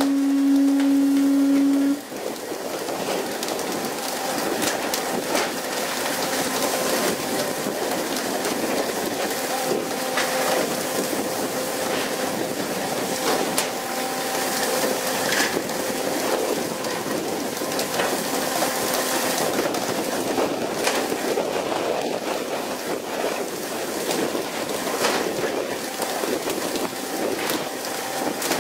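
A loud, steady horn-like tone for about two seconds that cuts off suddenly, then a steady rush of wind and sea spray over a fishing boat's deck, with scattered sharp clicks.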